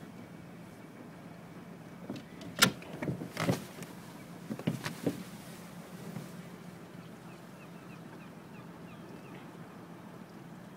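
Boat's motor humming steadily at low speed, with a few sharp knocks and short bursts of noise in the middle.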